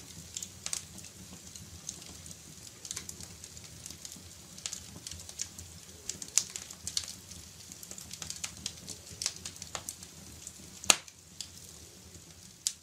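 Wood fire crackling in a fireplace: irregular pops and snaps over a low steady rumble, with the sharpest pop near the end.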